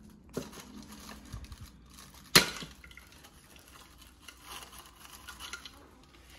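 Tissue paper crackling and tearing as a hand pokes into the paper-covered cups of a punchboard. One sharp knock or snap about two and a half seconds in is the loudest sound.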